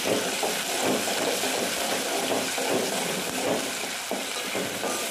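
Sliced onions sizzling in hot oil in a steel pot while a ladle stirs them, scraping through the pan in repeated strokes.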